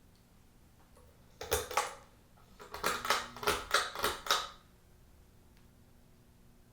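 A short clatter, then a quick run of about six sharp clicking rattles, like hard small parts being handled.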